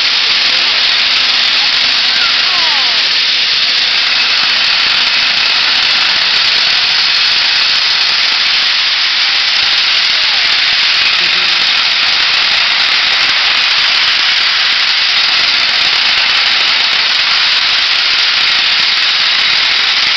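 Peppercorn A1 Pacific steam locomotive Tornado starting a train away, with a loud, steady hiss of steam blowing from its open cylinder drain cocks.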